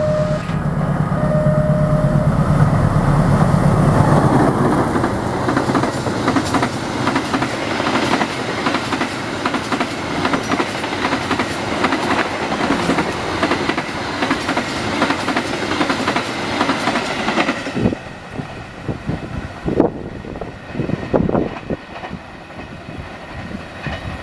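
A diesel-electric locomotive passes close by at speed, sounding short horn toots near the start over its deep engine drone. The long rake of passenger coaches follows, clattering steadily over the rail joints. About 17 seconds in the sound drops away to a quieter distant train, broken by irregular thumps.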